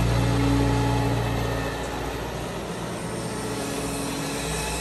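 Liebherr R940 Demolition excavator's diesel engine running under load. The engine note eases off after about a second and a half and picks up again near the end.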